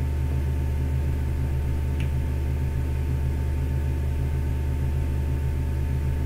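Steady low electrical or room hum with a faint steady tone above it, and a single faint click about two seconds in.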